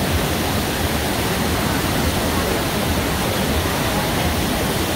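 Muddy mountain river in flood, swollen by heavy rain, rushing in a steady, loud whitewater rush.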